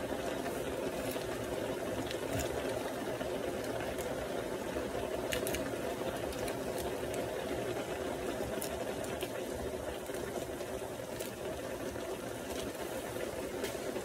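Pot of instant noodles boiling hard on the stove, a steady rapid bubbling with a few faint pops.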